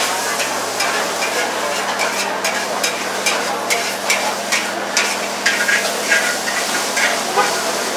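Char koay teow (flat rice noodles) frying in a wok: a steady sizzle, with a metal spatula scraping and clanking against the wok about twice a second as the noodles are stirred and tossed.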